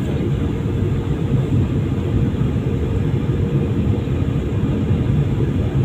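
Cabin noise of a Boeing 737-800 descending on approach: a steady noise from its CFM56 jet engines and the rushing air, heaviest in the low end.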